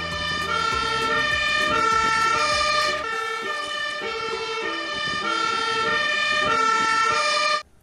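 Fire engine's two-tone siren, stepping back and forth between two pitches, with a low engine rumble under it for the first three seconds or so; it cuts off suddenly near the end.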